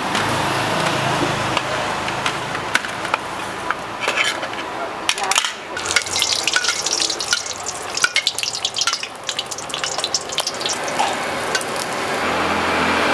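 Hot oil in a wok crackling and spattering around a floured slab of pork, busiest from about five seconds in and settling after about ten, with a metal ladle clicking and scraping against the wok.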